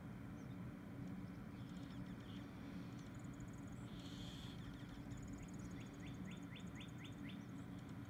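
Small songbirds calling and chirping, with high trilled notes and a run of about eight quick rising notes in the second half, over a steady low hum.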